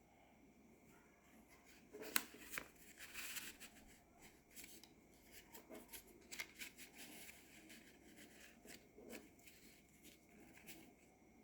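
Hands handling paper and card: faint rustling with small clicks and taps, the sharpest about two seconds in, thinning out near the end.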